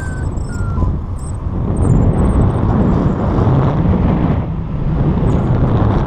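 Wind buffeting the microphone of a selfie-stick action camera on a tandem paraglider in a steeply banked turn. It is a loud, steady rushing noise that rises and falls a little.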